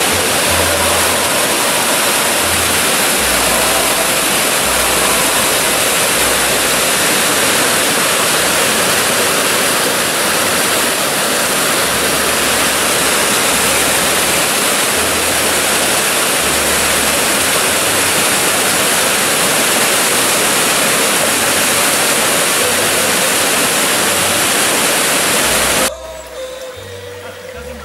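Mountain stream rushing loudly over rocks in a whitewater cascade, a steady rush that stops abruptly near the end. Background music plays faintly underneath.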